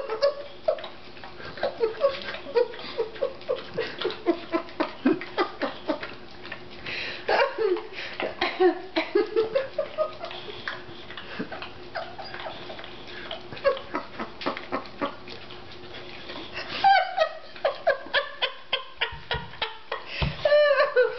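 A dog licking peanut butter off a face: a long, steady run of wet licking and smacking sounds, about two or three a second. A person's voice breaks in briefly a couple of times.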